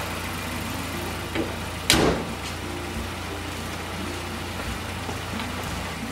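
Mazdaspeed 3's turbocharged 2.3-litre four-cylinder idling steadily, part of Mazda's idle relearn after a new air filter. Its hood is slammed shut once about two seconds in, the loudest sound.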